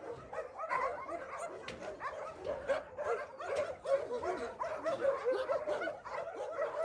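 Many shelter dogs barking and yapping at once, a dense run of overlapping short barks.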